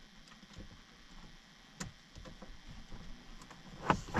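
Faint, scattered clicks and light knocks of plastic steering-column switch and trim parts being handled, with a sharper click about two seconds in and a louder knock near the end.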